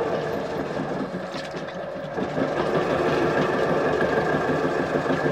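Motorised potter's wheel running steadily with a machine hum while a mound of wet clay is coned up on it by hand. The hum eases briefly about a second in and picks back up.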